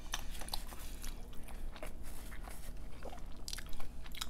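Close-miked chewing with the mouth closed: many small, wet clicks and smacks of food being chewed.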